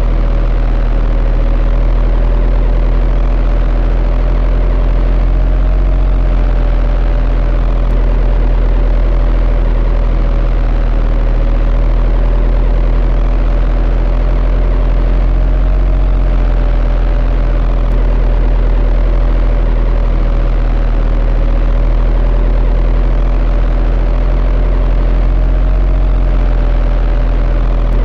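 Steady, loud motor hum with a deep rumble underneath and a whine that wavers slightly in pitch, swelling gently every few seconds.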